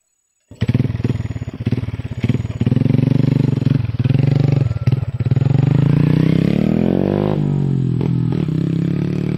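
Motorcycle engine running close by, starting suddenly half a second in. Its engine speed climbs for a couple of seconds, drops back sharply about seven seconds in, then runs steady.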